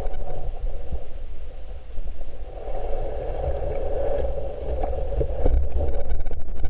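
Creek water heard through a camera submerged in the stream: a steady, muffled rushing with a deep rumble, and a few faint clicks about two-thirds of the way through.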